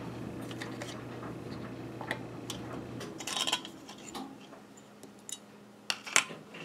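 Scattered light clicks and taps of metal canning lids and screw bands being handled and fitted onto glass quart jars, with a few louder clicks near the end. A low steady hum stops suddenly about three seconds in.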